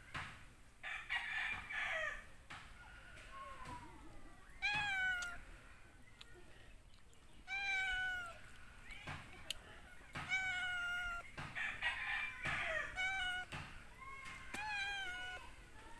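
A cat meowing over and over, short rise-and-fall meows about every one to two seconds.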